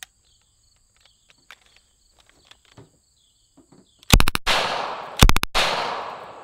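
Thompson 1928 submachine gun in .45 ACP firing two short full-auto bursts, the first about four seconds in and the second a second later, each trailing off in a long echo. Before the bursts there is only faint ticking.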